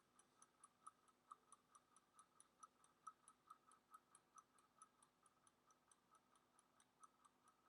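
Faint, fast, even ticking, about four to five ticks a second, of a Pomodoro timer counting down the work session, over a faint steady hum.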